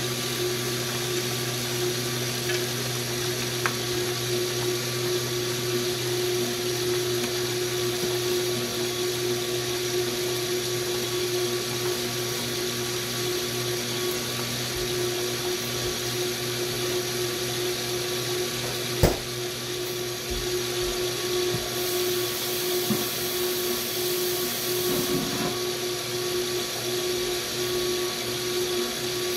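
KitchenAid multicooker's stir tower motor running with a steady hum as its paddle stirs food in the cooking pot. A single sharp knock about two-thirds of the way through.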